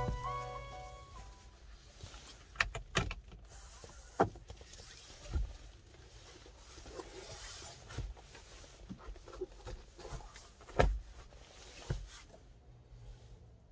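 A homemade padded window cover being pushed into a Kia Carnival's second-row window frame. There are scattered knocks and taps against the frame and trim, with some rustling of the pad; the loudest knock comes near the end. A music track fades out at the very start.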